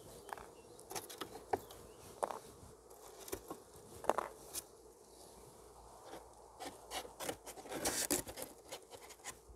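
Honeybees buzzing faintly around an open hive, with scattered soft clicks and knocks as a wooden honey frame is handled and set into a box.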